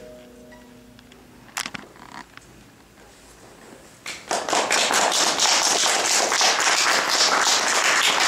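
The last chord of two mandolins rings away, with a few soft knocks around two seconds in. From about four seconds in, a small audience applauds steadily.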